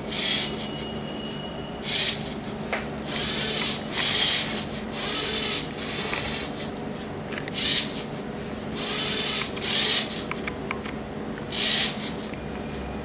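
LEGO Mindstorms NXT 2.0 pen plotter drawing letters: about nine irregular scratchy bursts as the pen strokes across the paper and the motors drive it, each half a second to a second long, over a steady low hum.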